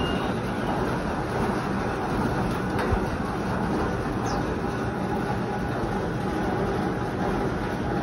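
Large electric floor fan running steadily: a constant, even air noise with no change in speed.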